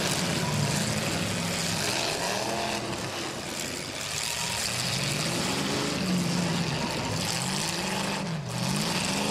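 Several demolition derby cars' engines revving up and down together, their pitch repeatedly rising and falling as the cars accelerate and back up around the arena.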